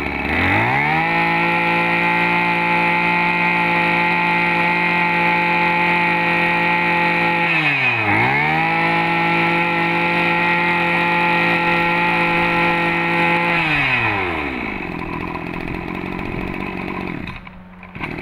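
Small Tanaka-line 21cc two-stroke brush cutter engine revved from idle to full throttle and held steady, dropping off briefly about eight seconds in and revving straight back up, then falling back to idle near the end.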